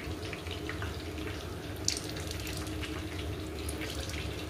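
Steady crackle of chicken pakoras deep-frying in oil, with a sharp click about two seconds in.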